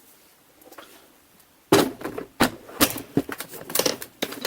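Hard plastic parts clicking and knocking together in an uneven run of sharp taps, starting suddenly a little under two seconds in, as a vacuum cleaner's plastic housing is handled and fitted back together.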